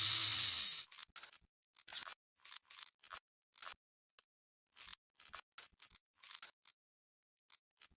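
A brief buzzing hum that stops about a second in, then a string of short, sharp metallic clicks and scrapes at irregular intervals, from the Desert Eagle pistol's parts being handled and fitted together.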